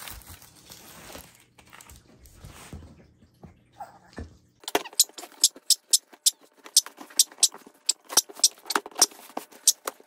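Scissors snipping through packing tape and the cardboard of a parcel: a quick, irregular run of sharp snips starting about halfway through. Before that comes faint rustling as the box is handled.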